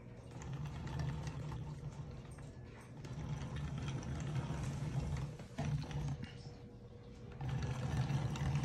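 Hand-cranked pressure popcorn cannon being turned over a burner flame: the crank and rotating cast-iron chamber make a fast, steady mechanical clatter as the sealed chamber builds pressure toward popping. It dips briefly about six seconds in, then picks up again.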